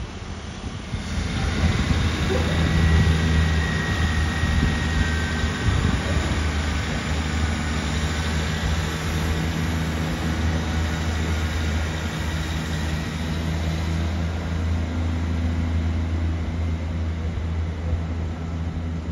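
Train running through the station with a steady low engine drone that builds about a second in, and a brief high whine about two seconds in.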